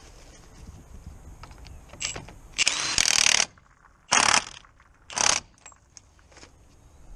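Impact wrench running a hub nut onto a front driveshaft: one loud burst of about a second, then two short bursts, with a few light handling clicks before.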